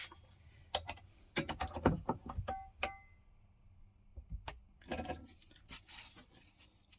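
Copper pipes and fittings knocking and clinking as they are handled and set down, a few of the knocks ringing briefly like metal.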